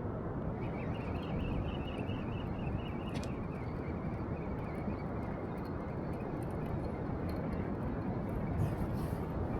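Steady rushing wind and sea noise on an open seafront pier, with a faint wavering high whine for a few seconds near the start.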